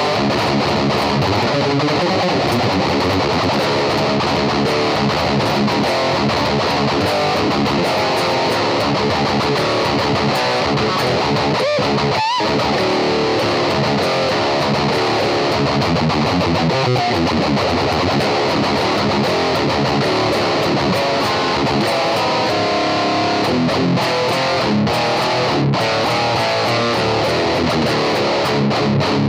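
ESP LTD M1000H-T electric guitar with active pickups played through a 5150 amp head, heavy metal riffing, recorded direct from the head rather than miked from a cabinet. The playing briefly drops out about twelve seconds in.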